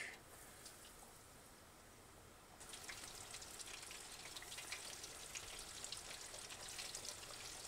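Battered fish frying in peanut oil at about 375°F: a faint, even sizzle full of small crackles that starts about two and a half seconds in, after a near-silent start.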